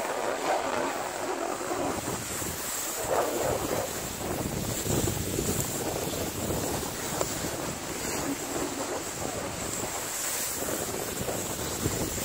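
Continuous rushing noise of skis sliding and scraping over packed snow, mixed with wind buffeting the microphone while skiing downhill; it swells and eases with each turn.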